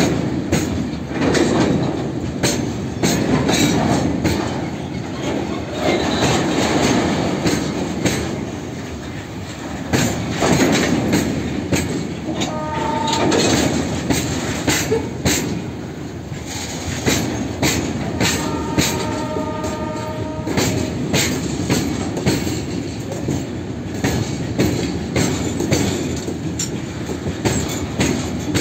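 A long freight train of oil tank wagons rolling past close by: a steady rumble with a continual irregular clickety-clack of wheels over rail joints. Twice, about halfway through and again about two-thirds through, a brief high-pitched squeal rises over it.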